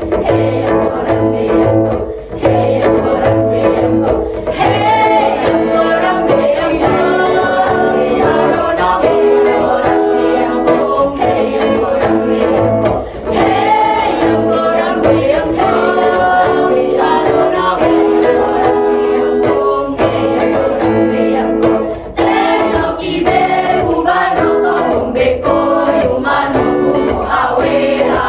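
Student choir singing in parts over instrumental accompaniment; the voices come in clearly about four seconds in over a steady accompaniment.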